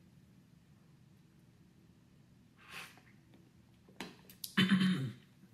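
Mostly quiet, then a man's audible breath in, a small mouth click, and a brief sung note of about half a second near the end, sung unaccompanied.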